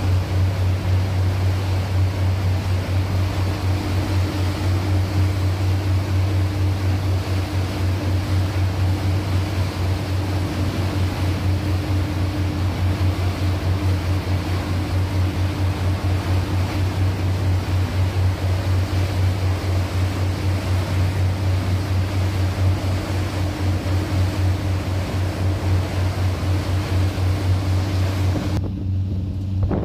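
Tour boat's engine droning steadily with a low, fast throb, over the rushing of the churning wake and wind on the microphone. About a second before the end the sound switches abruptly to a duller, quieter engine hum.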